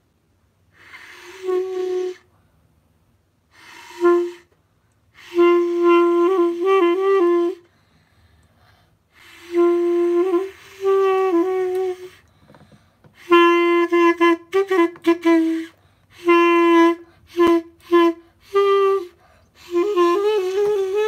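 Partly assembled clarinet, only its mouthpiece and upper section joined, blown in a string of about ten short notes of half a second to two seconds each, separated by brief gaps. The notes start breathy and mostly hold one pitch, with small wavers and jumps.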